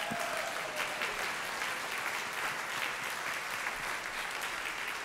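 Audience applauding steadily in welcome.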